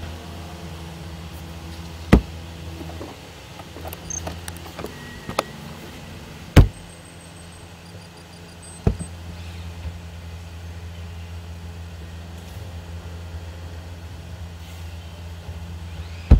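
Steady low drone of a car driving on the highway, broken by four sharp clicks or knocks, the loudest about six and a half seconds in.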